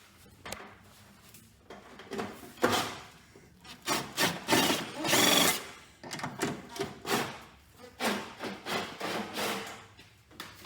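Hand tools working at the bolts holding a racing seat: irregular scraping and rubbing with knocks, loudest in a long scrape about halfway through.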